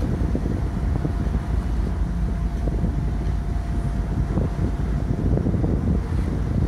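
Harbour tugboat's diesel engines running with a steady low rumble and a faint steady whine as its propellers churn the water alongside the quay. Wind is buffeting the microphone.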